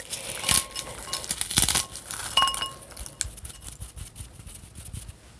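Dry salad topping crushed between the fingers over a glass mixing bowl, with crumbly crackling. Pieces land in the bowl with a few light clinks; two of them, about half a second and two and a half seconds in, leave the glass briefly ringing.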